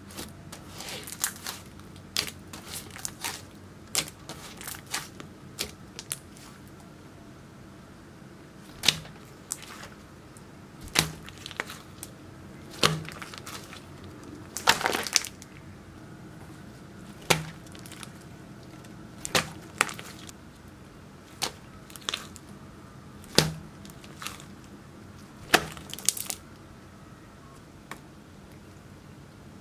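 Thick slime worked by hand, pressed and stretched, giving sharp pops and clicks. The clicks come quickly and lightly at first, then as louder single pops about every two seconds.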